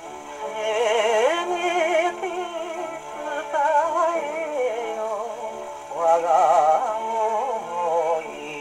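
Wind-up Eagle gramophone playing a 1950 Teichiku 78 rpm shellac record through a soft-tone steel needle: a Japanese popular song whose melody wavers with a strong vibrato, with faint surface hiss above it.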